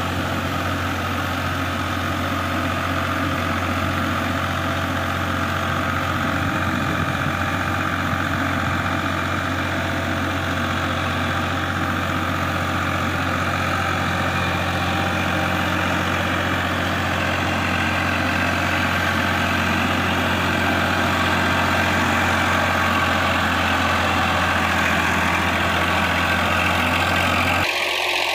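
Massey Ferguson 7250 DI tractor's three-cylinder diesel engine running steadily under load while it drives a rotavator. The low hum drops out suddenly near the end.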